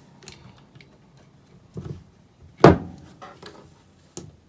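A few small clicks and knocks from handling a 12 V diaphragm RV water pump and fitting wire connectors onto its pressure switch, the loudest a sharp knock about two and a half seconds in.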